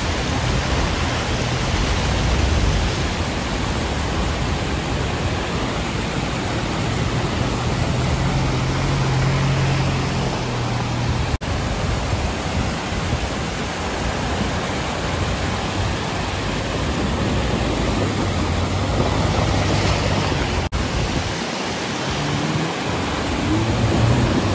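Rushing river water pouring over rocks, with the low hum of off-road 4x4 engines coming and going, and water splashing as a vehicle drives through the river near the end.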